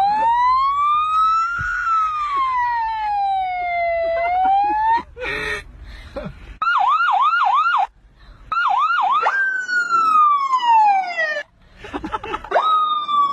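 A boy imitating a car alarm with his voice: a long wailing tone that slides up and down, then a run of quick rising whoops, about four a second, then long falling wails.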